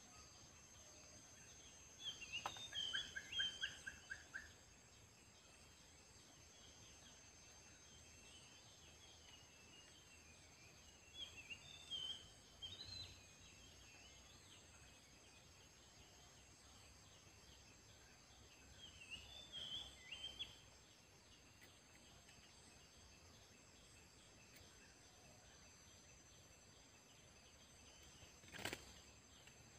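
Bulbul (merbah kapur) giving short bursts of chattering, bubbly calls three times, each a second or two long and several seconds apart, one of them ending in a quick run of repeated notes. A faint steady high buzz underlies it, and there is a single sharp click near the end.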